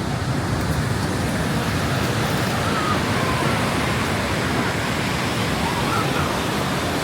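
Steady rushing noise of wind and surf on a beach, the wind fluttering low on the microphone.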